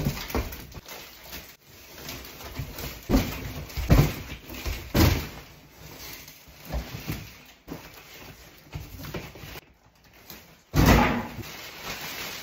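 Plastic wrapping crinkling and a cardboard carton being handled, with irregular knocks and thumps as large bagged plush toys are pulled out and set down.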